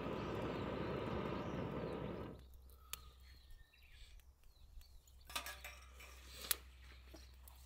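Steady rushing of breath blown through a long metal fire-blowing pipe into a small wood fire, stopping abruptly a little over two seconds in. Then the sound is much quieter, with a few sharp clicks and knocks.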